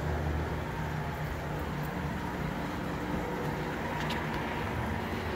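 Steady low hum and hiss of aquarium equipment running: air pumps and filters on a rack of fish tanks.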